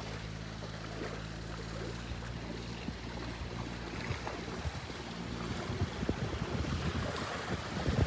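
Steady low drone of a motorboat engine offshore over the wash of small surf; the drone drops out about five and a half seconds in. Wind buffets the microphone, growing stronger toward the end.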